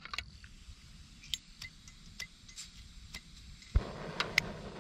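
A screw-on gas canister camping stove being lit: a series of light clicks, then about three-quarters of the way through a soft pop as the gas catches, followed by the steady hiss of the burner flame.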